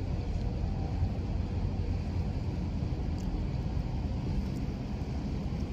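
Steady low engine rumble from a ship or boat underway, mixed with wind and water noise.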